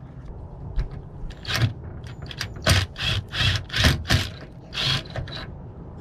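Drill run in a series of short bursts, drilling out the remnant of an old rivet in the compartment door's latch opening.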